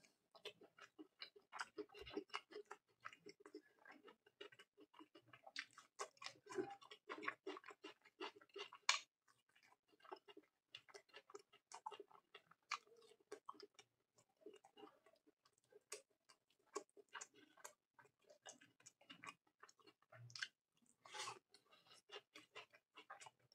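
Close-miked chewing of a mouthful of fried rice and curry eaten by hand: a dense, irregular run of short, wet mouth clicks.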